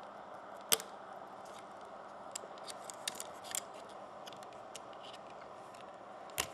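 Small sharp clicks and taps of a BlackBerry Torch's parts and a tool being handled during disassembly: one loud click about a second in, a quick run of lighter clicks around three seconds, and another click near the end, over a faint steady hiss.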